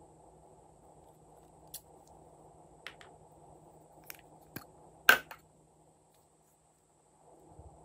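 Scissors snipping a lipstick and clicking against its metal tube: a few sharp, separate clicks, the loudest about five seconds in, over a faint steady hiss.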